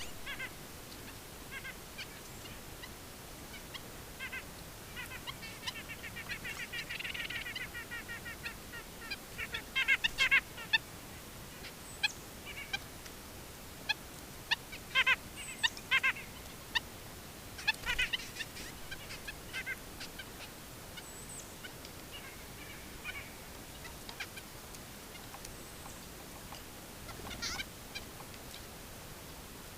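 Nuthatches calling over and over: short calls given singly and in rapid runs, loudest around the middle, over a faint steady hiss.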